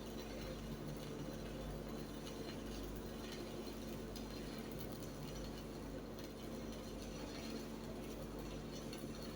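Steady electrical hum of a stick welding set with a faint crackling hiss, typical of an E6013 electrode burning in the arc during a fillet weld.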